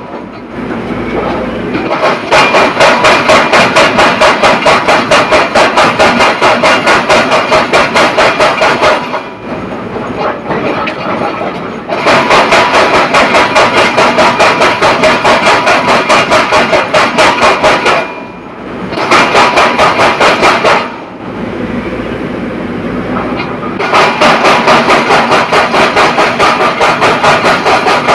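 Yuchai YCR65E rotary drilling rig working: rapid, evenly repeated metallic knocking, about four a second, in long runs. The knocking stops several times for a few seconds, leaving quieter machine noise.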